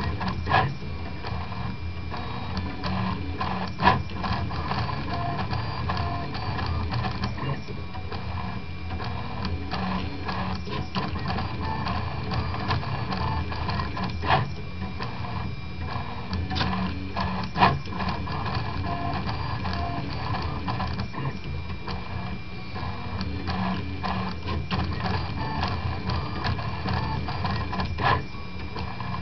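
Prusa Mendel RepRap 3D printer running a print: its stepper motors whir and buzz steadily as the axes move, with five sharp clicks along the way.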